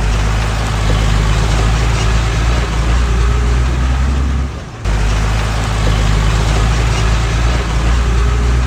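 Diesel engine of heavy machinery running steadily at working speed, with a deep low drone and a noisy hiss over it. It drops out briefly about halfway through, then carries on as before.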